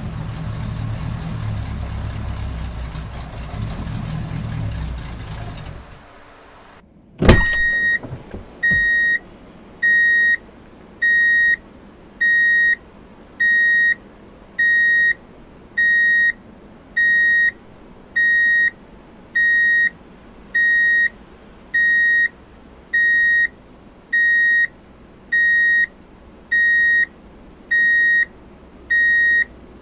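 Toy truck's electronic sound effects: a low engine rumble for about six seconds, a sharp click, then a steady high beep repeating about once a second, like a reversing alarm.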